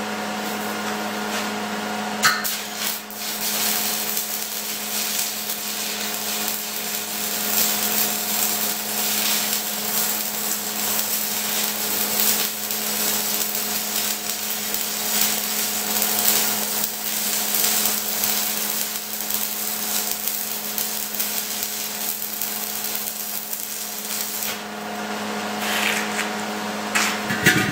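Stick-welding arc from a 3/32 low-hydrogen electrode on an Esab 215ic inverter welder. The arc is struck about two seconds in, crackles and hisses steadily for about twenty seconds, and breaks off a few seconds before the end, over a steady electrical hum.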